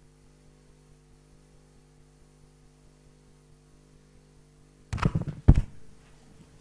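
Faint steady electrical mains hum on the microphone feed. About five seconds in it is broken by a brief cluster of loud knocks, the loudest coming about half a second after the first.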